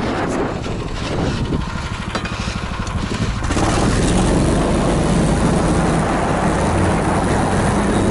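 Small engine of a tracked motorized ski-tow (a 'motor-dog') running, then opening up about three and a half seconds in as the machine drives off across the snow, and running steadily and louder after that.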